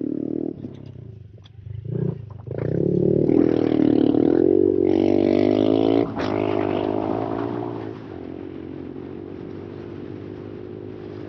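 Honda CRF110 pit bike's single-cylinder four-stroke engine under way. The throttle is eased briefly about a second in, then opened up and held high for a few seconds, before dropping back to a steadier, lower speed for the last few seconds.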